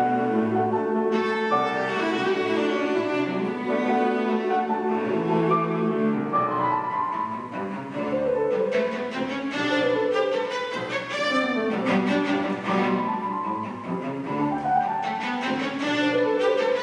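Cello and grand piano playing together: a bowed cello melody over piano accompaniment, note after note without a break.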